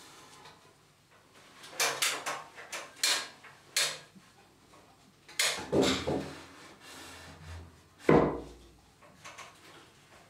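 A length of 3x2 timber knocking against wooden ceiling studs as it is pushed up and turned into place. The knocks are separate and sharp: a run of them two to four seconds in, a cluster around six seconds, and a heavier, deeper knock about eight seconds in.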